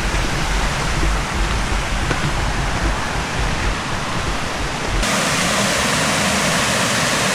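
Steady rushing of a waterfall, with a low rumble under it for the first five seconds. It then changes abruptly to a steadier, brighter rush of falling water.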